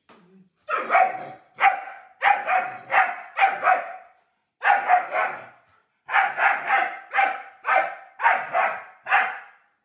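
German Shepherd puppy barking: a rapid string of short, sharp barks in quick groups, with two brief pauses near the middle. It is protective barking, aimed at a man play-acting an attack on a child.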